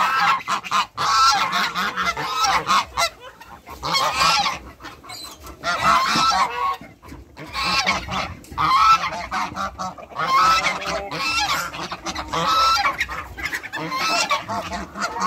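A flock of domestic geese honking, with loud calls coming in repeated bursts a second or two apart and short pauses between them.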